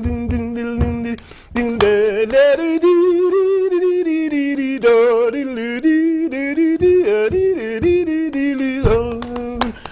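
Wordless a cappella singing. A steady held note over low rhythmic thumps opens, and after a brief break a wavering, ornamented melody with vibrato takes over. The held note and thumps return near the end.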